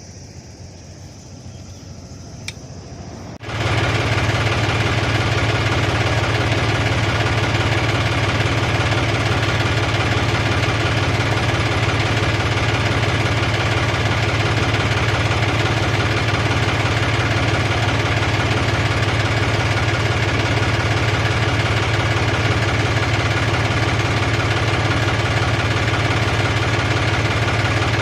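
An engine running steadily at a constant speed, cutting in abruptly about three and a half seconds in after a quiet stretch.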